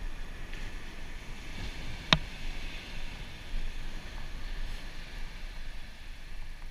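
Ocean surf washing onto a sandy beach as a steady hiss, with a single sharp click about two seconds in.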